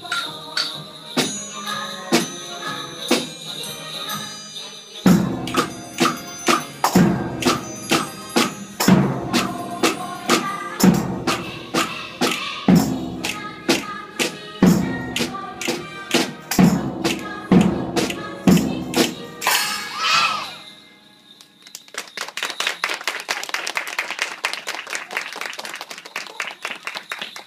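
Children's rhythm band with a bass drum, snare drum and tambourines playing along to a melody, the bass drum beating about once every two seconds. The piece ends on a last stroke about twenty seconds in, followed by applause.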